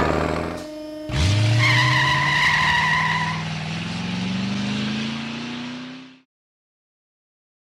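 Cartoon truck sound effect: an engine revs up and rises slowly in pitch as the truck drives off, with a tyre squeal about two seconds in. It fades out about six seconds in and leaves silence.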